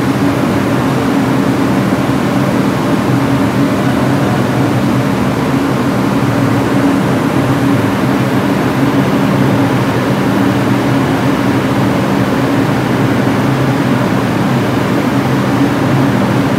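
Steady low hum of a New York City subway car standing in a station with its doors open, its onboard equipment running.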